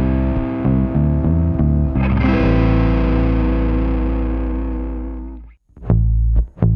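Background music: distorted electric guitar with a bass line, which cuts out briefly about five and a half seconds in and comes back with sharp rhythmic hits.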